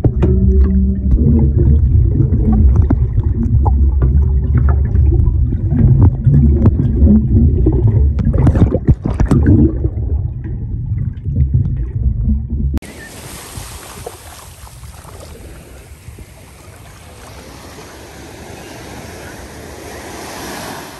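Loud, low, muffled rumbling with scattered knocks. About two thirds of the way in it cuts suddenly to a steady, quieter hiss of ocean waves.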